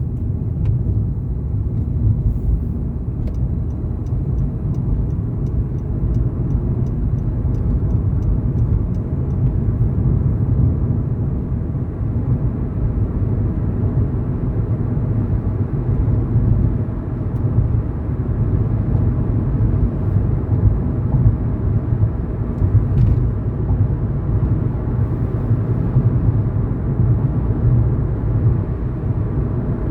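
Steady low rumble of a car driving along a road, its engine and tyre noise heard from inside the car.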